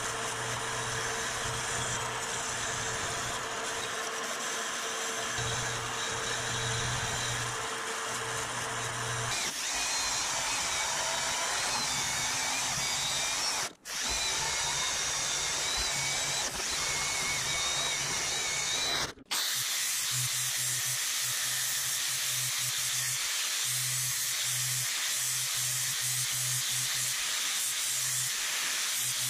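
A metal-cutting band saw cutting through a steel masonry saw blade. After an abrupt break it gives way to an angle grinder grinding the edge of the steel disc, over background music with a steady beat.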